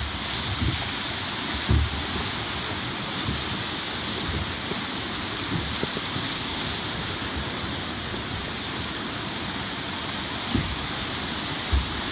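Steady rush of whitewater rapids heard from a boat running through them, with a few short low thumps about two seconds in and near the end.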